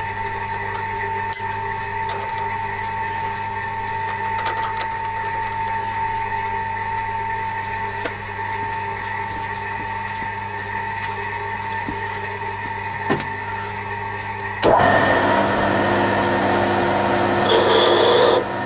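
Drill press spindle running with a steady hum. About three quarters of the way in, a spotting drill bites into the metal workpiece and a louder cutting noise takes over, stopping just before the end.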